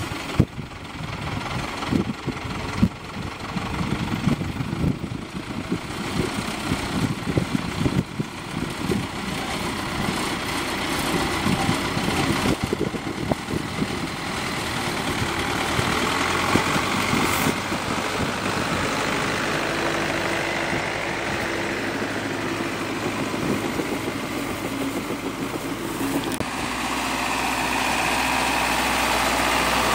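Diesel engine of a red Zetor tractor running at low road speed as it comes toward and past, growing steadily louder as it nears. Wind buffets the microphone in the first several seconds.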